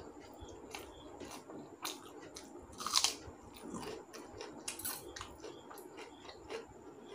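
Close-up chewing of a mouthful of rice and curry: scattered wet mouth clicks, with one louder crunchy bite about three seconds in.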